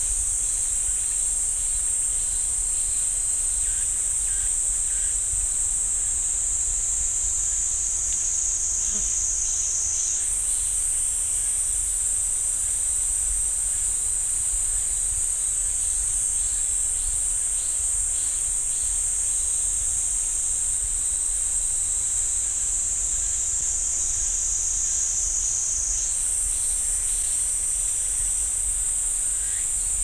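Cicadas singing in a dense, unbroken chorus: a loud, high, steady buzz. The pitch of the chorus steps up abruptly about ten seconds in and again near the end.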